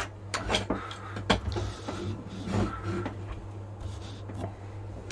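Clicks and light knocks of a plastic-and-metal hot-swap drive tray being handled and laid on a wooden desk, sharpest at the start, over a steady low hum.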